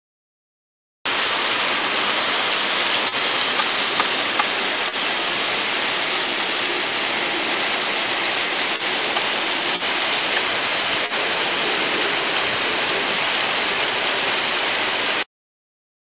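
Small creek cascades pouring over rock ledges: a steady rushing of falling water that starts abruptly about a second in and cuts off abruptly shortly before the end.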